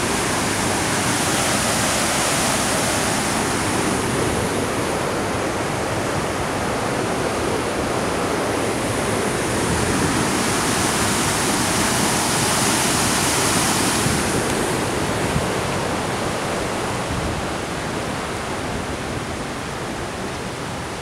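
Swollen river torrent in spate, after heavy rain, pouring out of a karst cave mouth as white water: a steady rush of water, a little quieter in the last few seconds.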